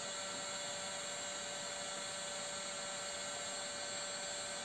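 Parkside PHLGA 20-Li A1 cordless heat gun running steadily at its 550 °C setting: a steady fan-motor whine over the rush of blown air, the motor turned down to its slowest speed for the hottest setting.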